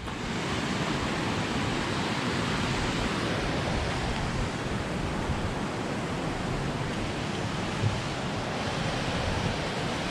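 Steady rushing of a fast-flowing mountain creek, an even hiss with no break, with a brief low thump about eight seconds in.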